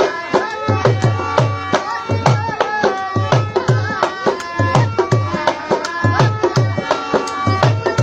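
Music with a fast tabla and drum rhythm under a melody line.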